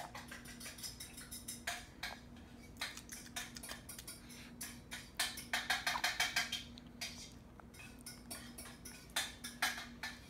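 A run of irregular sharp clicks and taps, thickest in a quick cluster about halfway through, over a faint steady hum.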